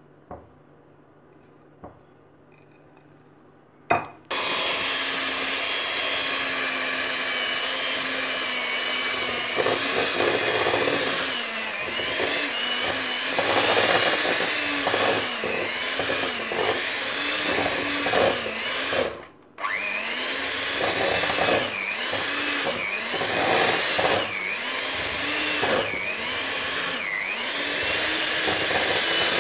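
Electric hand mixer switched on with a click about four seconds in, its motor running loud and steady. From about a third of the way through, its pitch dips and recovers over and over as the beaters work through a crumbly flour-and-egg dough. It cuts out briefly about two-thirds of the way through, then runs again.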